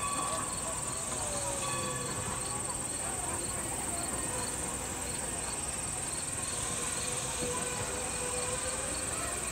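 Chorus of summer field insects trilling steadily at a high pitch, with a faint ticking about twice a second through the first half.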